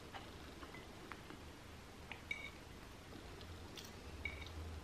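Faint light clicks and two short ringing clinks of a metal fork against a ceramic plate as noodles are twisted onto it.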